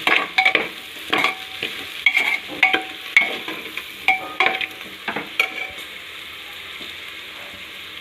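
A spoon stirring vegetables and spices frying in oil in a pressure cooker: a series of scraping strokes against the pot over steady sizzling. The strokes stop after about five seconds, leaving only the sizzle.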